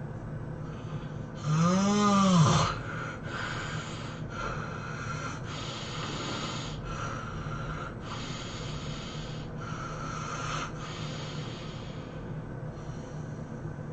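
A person snoring: one loud, pitched snore about a second and a half in that rises and then falls in pitch, followed by a run of airy, rasping breaths about once a second.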